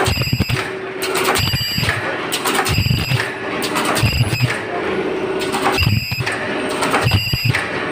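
Automatic ultrasonic face-mask machine running. Its welding heads give a high ringing squeal in a repeating cycle every second or so, each with a low thump, over a steady machine hum.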